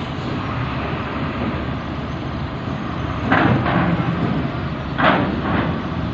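Steady rumble of wind and truck engines, broken by two pairs of metallic clanks about three and five seconds in: truck wheels, front then rear axle, rolling over the steel ramp of a ferry.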